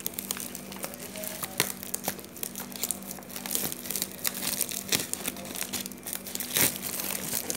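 Plastic parcel wrapping and stretch film crinkling and crackling in irregular bursts as it is handled and pulled at, over a steady low hum.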